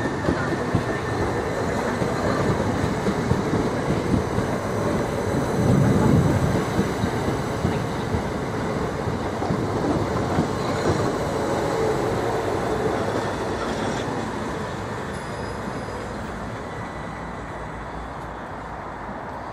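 Class 377 Electrostar electric multiple unit running past close by, its wheels clicking over the rail joints in a steady series of beats. It is loudest about six seconds in, then fades steadily over the last few seconds as the train moves away.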